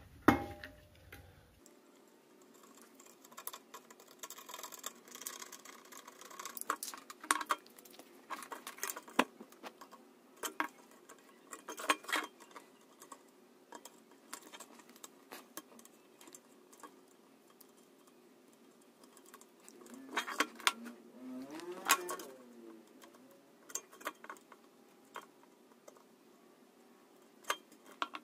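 Light clicks, taps and scrapes of hand tools on an aluminium LED channel while wiring is prepared and soldered: a utility-knife blade scraping a rusty wire clean so solder will take, and a soldering iron touching the joints. A faint steady hum runs underneath, with a louder cluster of scraping about twenty seconds in.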